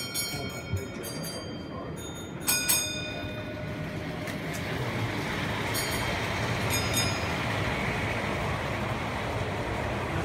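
Model train running on the layout's track, a steady rolling rumble that grows louder from about four seconds in. A few short metallic clinks ring out in the first three seconds.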